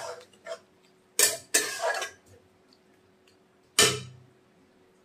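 A metal spatula scraping and knocking against a steel kadai of prawn curry: two quick strokes a little after a second in, then one sharp clank with a short ring near the end.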